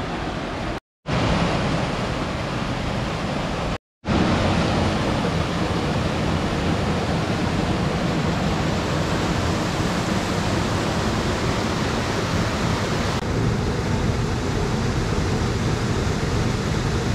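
Mountain creek water rushing over rocks, a loud steady rush. It drops out for an instant twice, about a second in and near four seconds.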